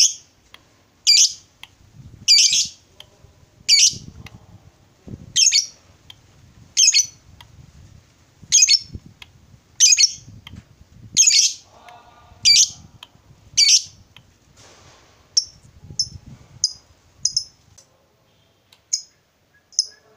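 Fischer's lovebird calling: loud, sharp, short high-pitched calls repeated about once every second and a half. From about three-quarters of the way in, these change to quicker, quieter chirps, with a short pause near the end.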